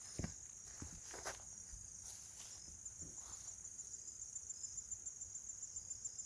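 Insects chirping in a steady high-pitched rapid pulse, about five chirps a second, with faint rustling steps in the first few seconds.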